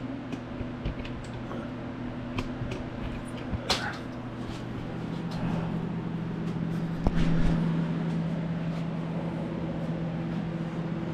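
Handling noise of a camera being lifted off its stand and carried: scattered clicks and knocks, with a heavier thump about seven seconds in, over a steady low hum.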